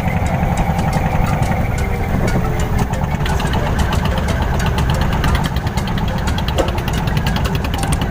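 Klotok boat's diesel engine running steadily, a loud, rapid and even thudding beat.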